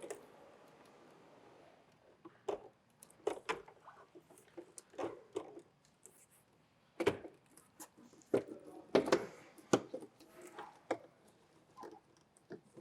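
Irregular light clicks, taps and rustling of hands fitting door-release cable parts and plastic clips inside a car door, with a few sharper knocks in the middle.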